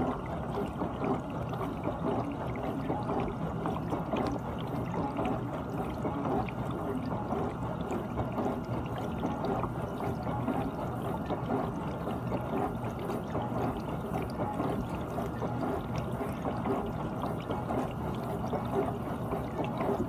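GE dishwasher running its wash cycle: a steady rush of water spraying and sloshing inside the tub.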